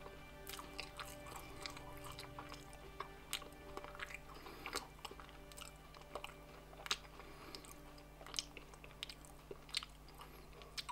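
Crunchy cream-filled wafer being chewed: irregular crisp crunches, with faint background music fading out over the first few seconds.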